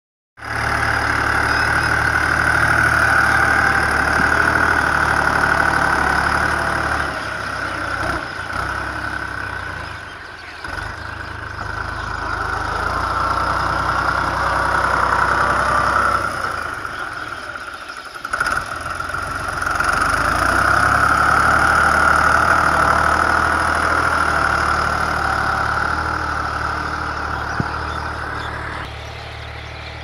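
A motor vehicle engine idling steadily, with a dense, continuous high hiss over it; the sound dips briefly twice.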